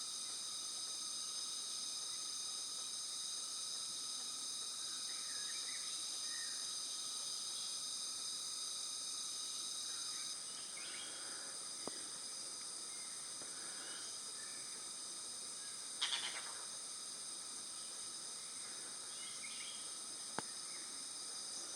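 Steady chorus of forest insects, a drone of several high tones held without a break, with a few faint short bird chirps and a brief buzzy call about two-thirds of the way through.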